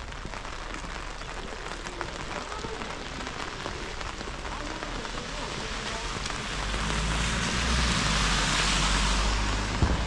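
Steady rain falling, with a fine patter of drops. From about two-thirds of the way in, a low rumble and a louder hiss swell up, and a sharp knock comes near the end.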